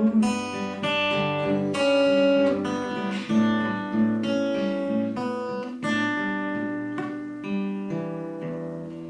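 Solo acoustic guitar playing the closing instrumental bars of a song: a run of picked notes and light strums, gradually getting quieter.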